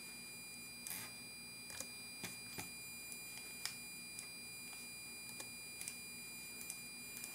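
Faint room tone with a steady, thin, high electronic whine, broken by about a dozen small scattered clicks from working a computer's mouse and keyboard.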